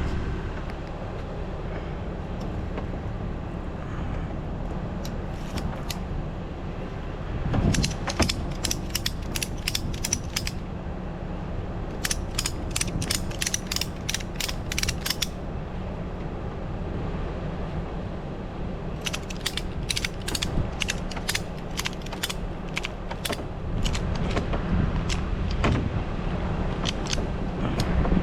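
Ratchet strap being cranked tight, its pawl clicking about four times a second in three runs of strokes with short pauses between. A steady low hum runs underneath.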